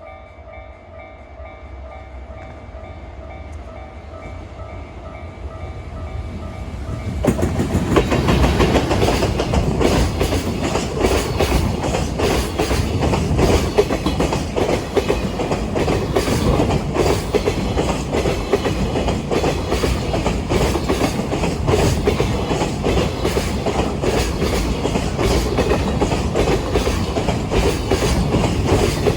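A level-crossing alarm rings in steady repeated tones while a freight train's rumble grows louder. About seven seconds in the train reaches the crossing, and its wagon wheels clatter loudly and continuously over the rail joints as it passes.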